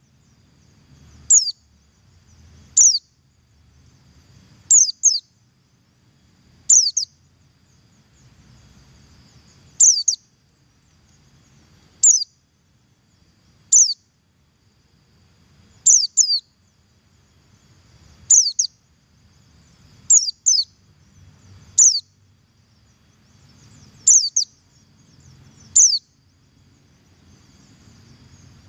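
Pleci buxtoni white-eye giving its double call: short, high, falling notes about every two seconds, often paired in quick succession, used as a lure call to get other white-eyes calling.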